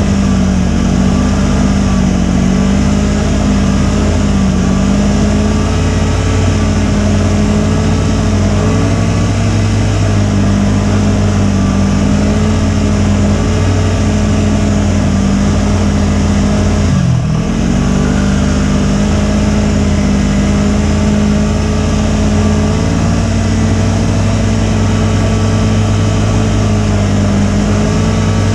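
Snowmobile engine running at a steady speed, with a brief dip in engine pitch that recovers about two-thirds of the way through.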